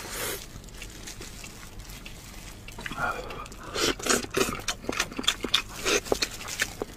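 Close-miked wet eating sounds: sucking, smacking and chewing as meat is gnawed off a spicy sheep's head held in both hands. It is fairly quiet at first, and from about three seconds in comes a quick run of wet clicks and smacks.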